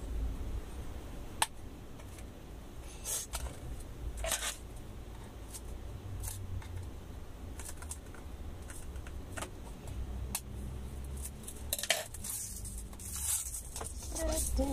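Scattered small clicks, taps and brief scrapes of hands handling a plastic-wrapped tube and snipping at its wrapping with scissors.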